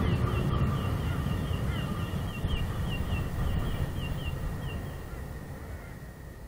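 Low rumble of a train fading away into the distance, with a bird calling in a quick run of short, high, falling chirps, about three a second, that stops about five seconds in.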